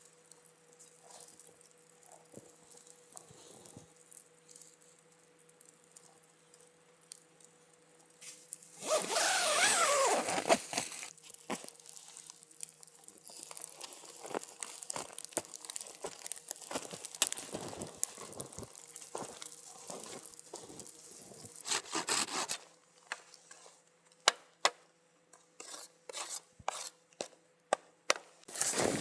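Scraping and rubbing sounds, loudest for about two seconds some nine seconds in, followed by scattered sharp clicks and knocks.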